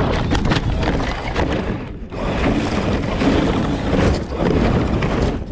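Rough, loud noise on the microphone of a camera mounted on a 1/10-scale RC crawler as it tips over on a dry dirt slope. In the first two seconds there are rapid crunching knocks of the truck and dirt, then wind buffeting the microphone.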